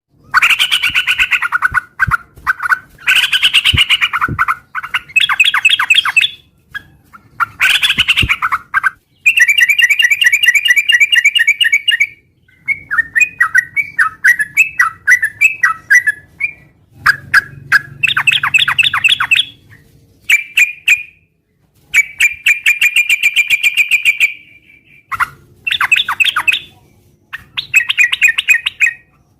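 Yellow-vented bulbul (trucukan) singing in full, lively voice: loud, repeated phrases of rapid chattering notes, each one to three seconds long, separated by short pauses.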